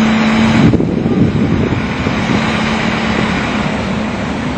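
Loud steady engine drone with a low hum running under it.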